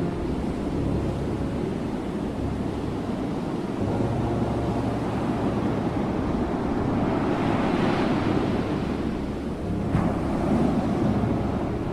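Ocean surf: waves washing and breaking over a steady low rumble, with one wave swelling up and breaking about two-thirds of the way through.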